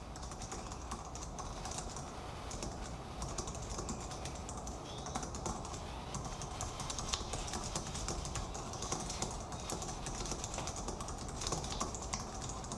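Fast, continuous typing on a computer keyboard, a steady run of key clicks with no long pauses.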